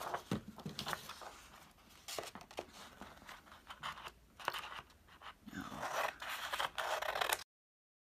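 Paper being handled and cut with regular scissors: scattered snips and rustling, with a denser stretch of cutting noise near the end before the sound cuts off abruptly to dead silence.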